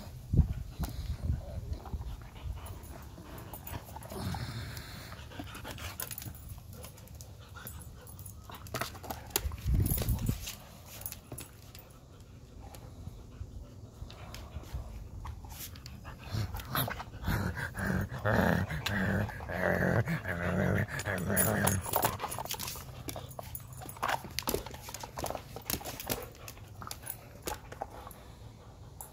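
An Alaskan husky vocalising for several seconds about two-thirds of the way through, in a pitched, wavering run of sounds, with scattered light clicks and scuffs while it plays with a ball.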